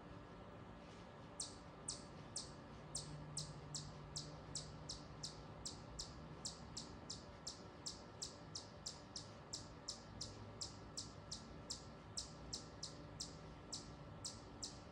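A high, sharp chip call repeated steadily about three times a second, starting a little over a second in, from a small woodland animal calling.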